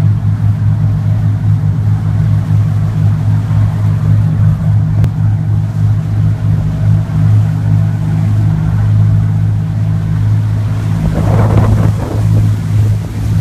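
Steady low drone of a running engine or generator, unchanging throughout, with a short noisier rush about eleven seconds in.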